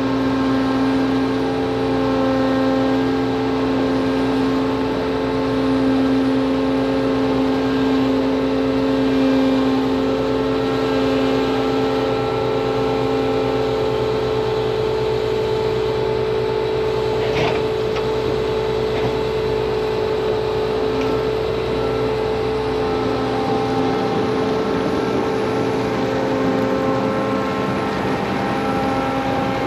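Combine harvester's engine running steadily at a constant speed. There is one short click about halfway through.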